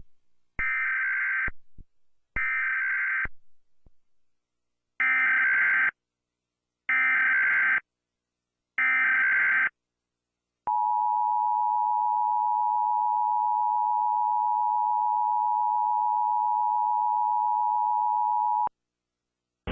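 Emergency Alert System header and attention signal from a national EAS test. Five short, buzzy digital data bursts of the SAME header come first. They are followed by the steady two-tone EAS attention signal, held for about eight seconds and cut off sharply.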